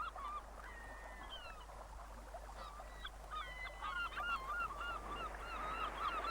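A flock of birds calling, with many short overlapping calls and a longer falling whistle about a second in, typical of shorebirds on a tidal flat.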